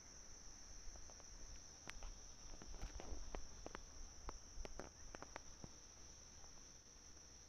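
Faint, steady high-pitched insect song, a continuous drone, with a scatter of sharp clicks and crackles between about one and six seconds in.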